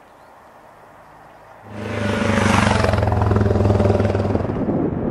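Motor vehicle engine running with a loud rush of wind and road noise, coming in suddenly a little under two seconds in after a quiet low hum.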